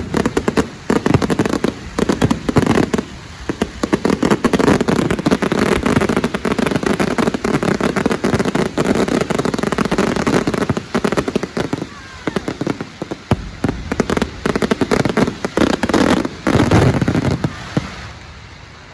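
Fireworks display: a dense, rapid run of bangs and crackling that dies away near the end.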